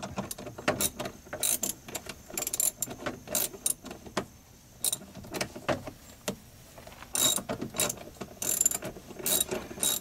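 Socket ratchet wrench clicking in short, irregular runs as a seatbelt retractor bolt is turned, with busier spells of clicks about seven seconds in and again near nine seconds. The bolt's threads are loose, so the socket has to be held to make the ratchet catch.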